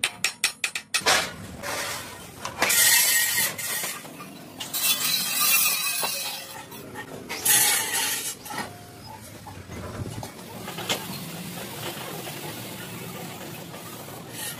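Metalwork on a steel truck chassis rail: a quick run of sharp metal taps in the first second, then several short, harsh bursts of noise with occasional clinks between them.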